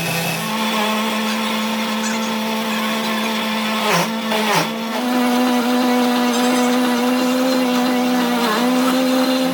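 Electric workshop machine motor running steadily with a steady hum. Its pitch steps up just after the start, then dips sharply twice around four to five seconds in and once more briefly near the end, as if it bogs momentarily under load.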